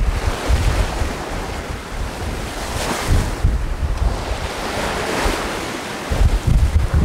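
Sea waves washing and wind buffeting the microphone, the water swelling louder about three seconds in and again about five seconds in.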